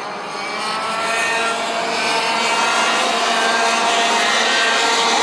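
Several racing karts' 125cc two-stroke ROK engines running at high revs together, their overlapping pitches rising and falling as the drivers work the throttle. The sound grows louder over the first couple of seconds and then holds steady.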